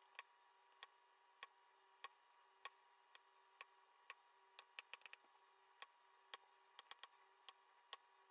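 Diamond painting drill pen tapping resin drills down onto the adhesive canvas: sharp, light clicks at an uneven pace of about one or two a second, with a quick run of several clicks about halfway through. A faint steady hum runs underneath.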